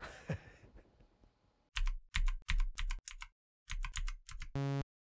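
Computer keyboard typing sound effect: about a dozen keystroke clicks in two quick runs, starting a couple of seconds in, as the title text types itself out. A short, flat electronic beep follows near the end.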